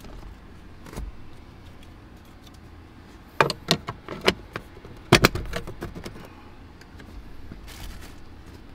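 Plastic clicks and knocks as a cabin air filter is pushed into its housing behind the glove box of a Lexus GX460. A few sharp clicks come about three and a half seconds in, and a louder cluster of knocks a little after five seconds.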